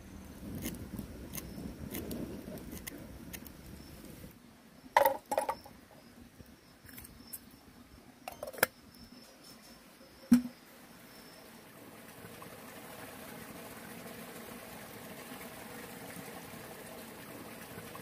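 Metal cookware clinking: a bowl or lid knocked against a pot a few times, with a duller knock about ten seconds in. In the second half, a steady sound of shallow stream water flowing.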